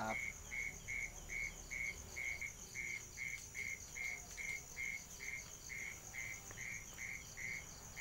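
Night chorus with a frog calling in short, evenly spaced notes, about two and a half a second. Behind it runs a steady, high-pitched insect trill.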